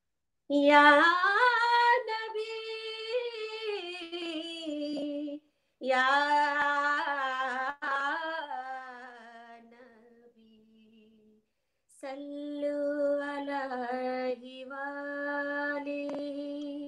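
A woman singing a naat unaccompanied, opening with long, drawn-out held notes in three phrases. The second phrase fades away, and after a short pause the third begins about twelve seconds in.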